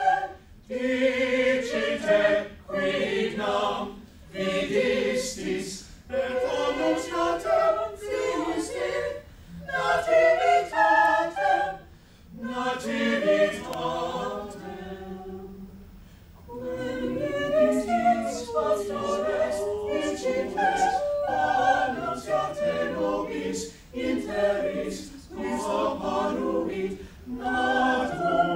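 Small mixed chamber choir of men's and women's voices singing a cappella, in sung phrases with short breaks between them. The singing grows softer around the middle, then comes back fuller.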